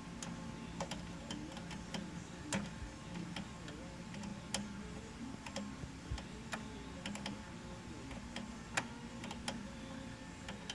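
Two open-end wrenches clicking against an AN hose fitting as it is tightened: irregular, scattered metallic ticks, about one or two a second.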